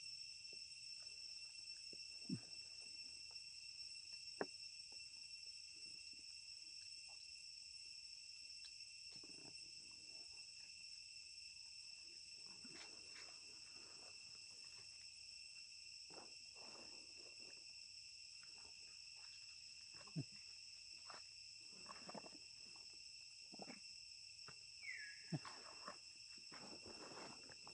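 Steady, high insect chorus running throughout, with scattered faint clicks and rustles and a few short falling sounds.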